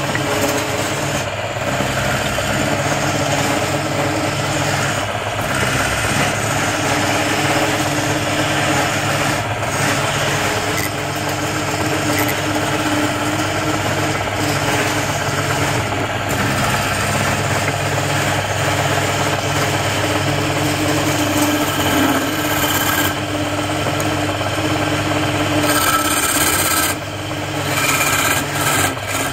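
Wood lathe motor running steadily while a hand-held turning chisel scrapes and cuts a spinning wooden cylinder, a continuous rasping shave over a steady hum. The cutting noise drops off briefly near the end.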